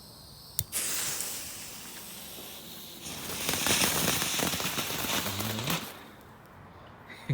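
Small F1 crackling fountain firework: a sharp crack as it catches, then a hiss that swells into a dense spray of crackles and stops abruptly about six seconds in as it burns out.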